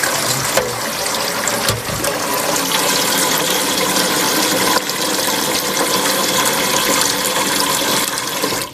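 Water running hard from a tap into a cooking pot, filling it, then shut off just before the end.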